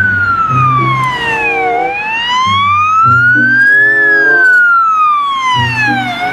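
A siren wailing in slow sweeps, falling, rising, then falling again, each sweep about two seconds long, over background music.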